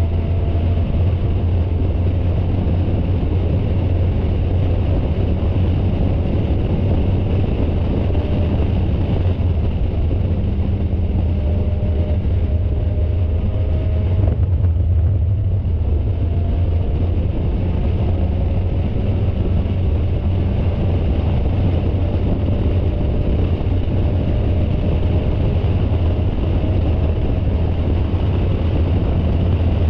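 Spec Miata (Mazda MX-5 Miata) race car running at speed, heard through an onboard camera: a loud, steady low rumble of engine, wind and road noise. The engine note climbs slowly several times, with a short break about halfway through.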